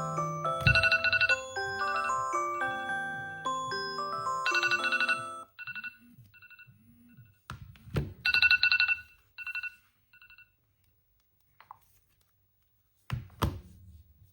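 Smartphone alarm and timer tones: a melodic chiming tune that stops about five seconds in, then a short burst of rapidly repeating high beeps. There are a few sharp knocks, one with the beeps and two close together near the end.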